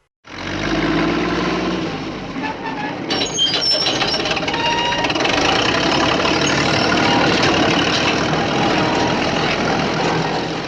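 A heavy vehicle's engine running steadily, like a truck or construction machine.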